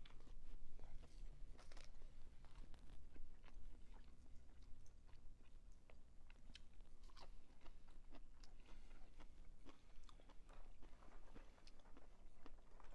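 A person chewing a mouthful of a fried pickle burger, with many small crunches and wet mouth clicks throughout.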